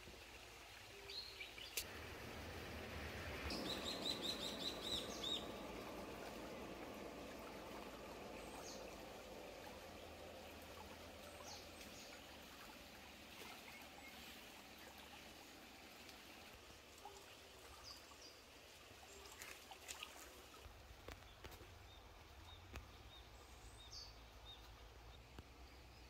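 Faint countryside ambience: small birds calling, with a rapid series of high chirps about four seconds in and a few scattered calls later, over a soft steady hiss of trickling irrigation-ditch water and a low rumble.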